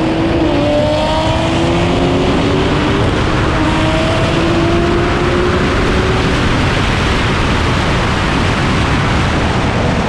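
Nissan Skyline R34 GT-R and Toyota Supra MKIV running flat out side by side in a roll race. An engine note climbs slowly in pitch for about six seconds under a heavy rush of wind, then fades, leaving mostly wind and road noise.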